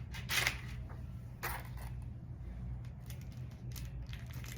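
Handling noises as a cigar box is unboxed: two brief rustles, then a run of light clicks and taps near the end, over a steady low hum.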